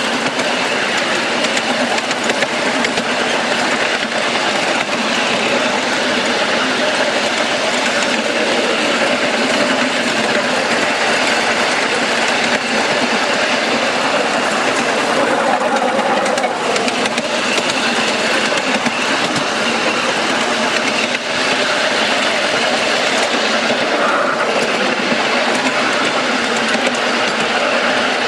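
Ride-on miniature railway train rolling along its track: a steady, loud rattle and clatter of small wheels on the rails, picked up close to the wheels of the passenger car.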